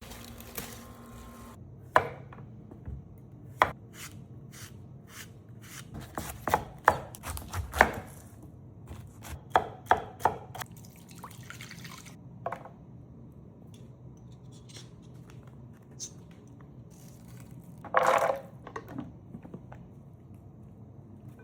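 Knife chopping food on a cutting board in irregular knocks, some single and some in quick runs, with a longer, louder noise about 18 seconds in.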